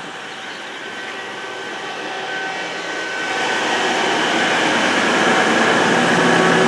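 A diesel train approaching through the station, its engine and wheel noise growing steadily louder, with a faint whine running through it.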